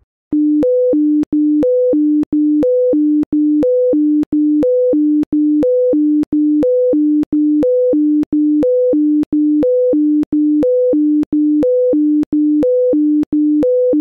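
Synthesized emergency alert attention tone: a loud low beep with a short higher note, repeating about once a second with clicks at each tone change. It signals the start of an emergency warning broadcast.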